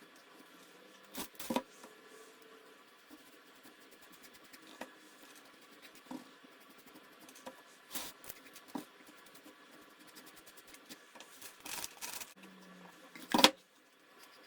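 Handling noises while a crate is painted with a foam brush: faint brush scratching, with scattered knocks and taps as the crate and paint things are moved about, the loudest a sharp knock near the end.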